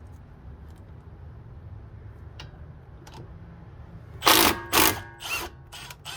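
Impact wrench fired in short bursts to loosen a caliper bracket bolt: two loud bursts about four seconds in, then three briefer ones near the end, over a low steady hum.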